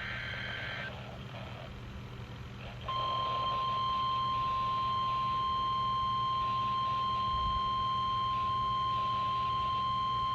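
NOAA Weather Radio 1050 Hz warning alarm tone, received over a weather radio. It is one steady high tone that starts about three seconds in and holds, and it signals that a warning broadcast follows. At the very start a short warbling burst of SAME digital header data sounds, with a faint steady hum underneath throughout.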